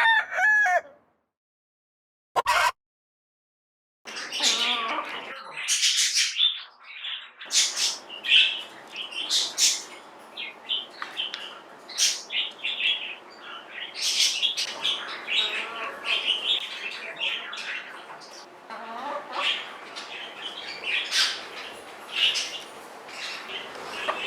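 Silkie chicken calling in an odd, strange-sounding voice: one short call about two and a half seconds in, then from about four seconds a long run of repeated calls mixed with sharp clicks.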